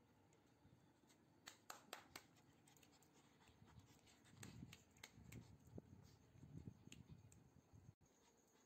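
Near silence with a few faint sharp clicks around a couple of seconds in, then soft low puffs a few seconds later.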